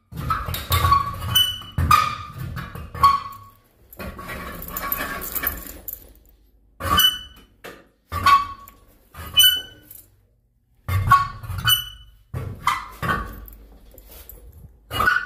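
An irregular series of sharp taps or knocks, about a dozen, each with a short ringing tone, with a couple of seconds of scraping hiss between them.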